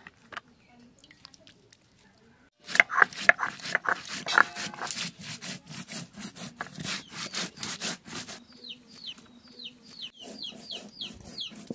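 Whole spice seeds (fennel, cumin, coriander) being ground by hand on a flat stone slab with a stone muller: rhythmic scraping and crunching that starts about two and a half seconds in. In the last few seconds, a bird peeps about ten times, short high calls falling in pitch.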